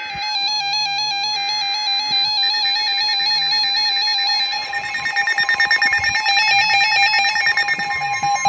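Several NOAA weather radios going off together as they receive a severe thunderstorm warning. Screeching data bursts of the alert header overlap with the radios' warbling electronic alert tones. A fast pulsing beep joins about halfway through, and a steady alert tone rises in near the end.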